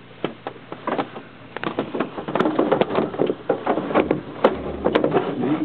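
Irregular clicks, knocks and rattles of handling noise in a glider cockpit, getting busier and louder about two seconds in.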